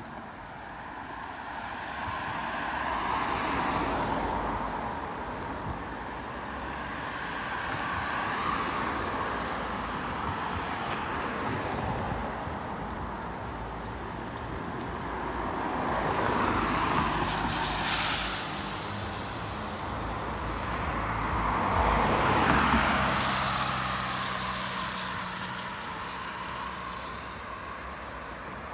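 Road traffic: about five cars pass one after another, each with tyre and engine noise that swells and fades. The loudest passes a little over three-quarters of the way through.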